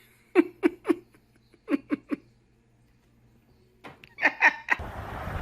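A person laughing in short quick bursts, ha-ha-ha, in a few separate fits. Near the end the laughter gives way to a steady rumbling noise.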